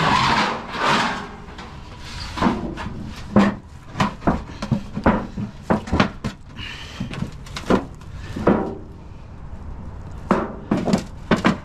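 Scrap metal and wire being handled and trampled: irregular clanks, rattles and scrapes, with a longer scraping rush in the first second.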